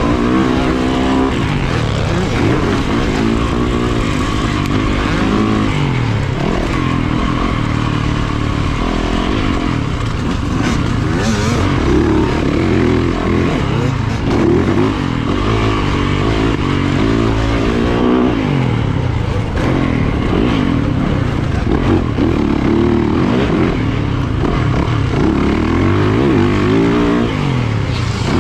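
Yamaha two-stroke dirt bike engine, heard from on the bike, revving hard and shifting around a motocross track: the pitch climbs and drops back again and again, over a steady rush of wind and track noise.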